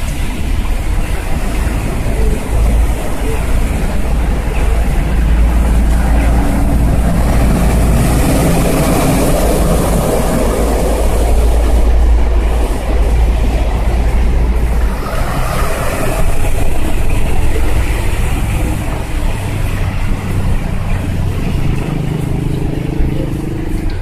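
Road traffic on a rain-soaked street: tyres hiss and splash through standing water. A van throws up spray around the middle. A steady low rumble runs through the first half.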